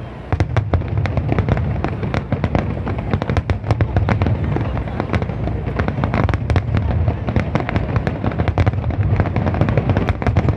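Aerial fireworks going off in a dense barrage: rapid, sharp crackling bangs, many a second, over a steady low rumble. The barrage starts abruptly just after the beginning.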